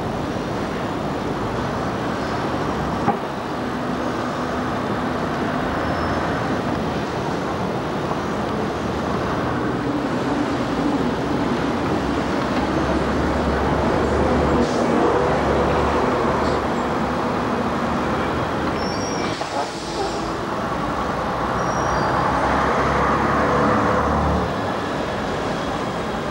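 Busy street traffic, with double-deck buses and trams passing close by and a bus engine running, louder for a few seconds near the end.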